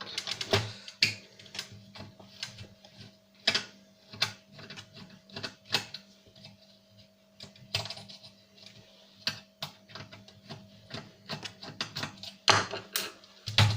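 Irregular clicks and taps of a screwdriver and hands working screws out of a DVD player's plastic front bezel and casing, over a faint steady hum.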